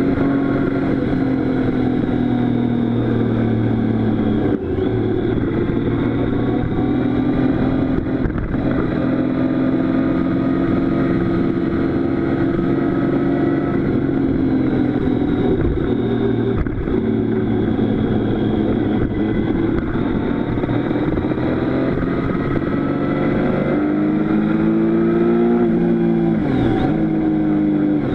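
Motorcycle engine running at road speed, its pitch holding fairly steady with slow drifts. Near the end the pitch climbs, then dips sharply and picks up again.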